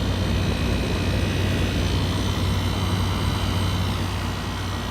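Outdoor side of a 1988 Carrier International Series 12,000 BTU through-wall air conditioner running on cooling: steady low compressor hum with the condenser fan's whirring air.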